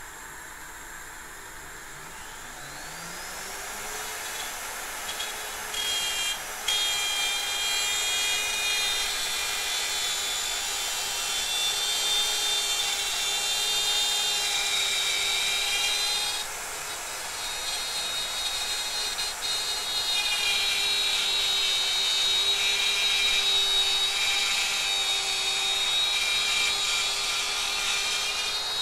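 Electric wood router spinning up with a rising whine, then running steadily at speed. From about six seconds in it cuts into wood with a louder, harsher, higher sound, eases off for a few seconds midway, then cuts again.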